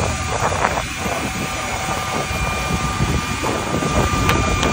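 Steady roar of a jet aircraft's engines running, with a constant high whine over it.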